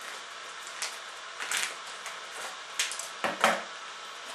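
Sachet of Easiyo yoghurt mix being handled and opened: a few short crinkles and rustles, the loudest a little over three seconds in.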